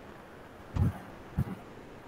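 Two short, low thumps about half a second apart, the first the louder, over faint steady room hiss.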